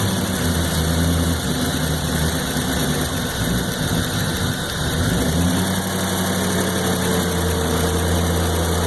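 1993 Corvette's LT1 V8 idling after a rev. The idle turns uneven for a couple of seconds around the middle, then steadies: the rough, stuttering idle the owner is chasing.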